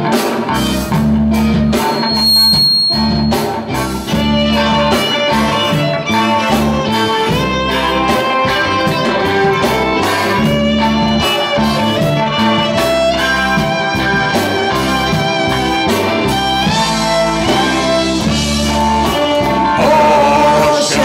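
Live band playing an old Irish song arranged as reggae, on fiddle, electric guitar and bass guitar, with a steady beat.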